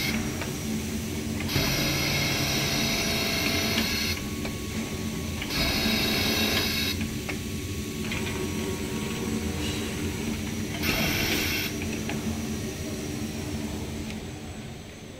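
Richpeace CNC multi-layer cutter working its cutting head through stacked PE bulletproof fabric: a steady machine hum, with three spells of a louder high-pitched buzz of a second or more as the knife cuts. It quietens near the end.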